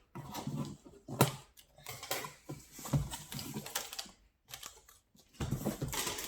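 Packaging being handled and opened by hand: a series of light clicks, taps and rustles, a short near-silent pause a little past four seconds in, then denser rustling near the end.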